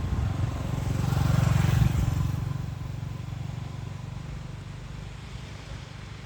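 A motor vehicle passing close by on the road: its engine and tyre noise swell to a peak about a second and a half in, then fade away as it moves off.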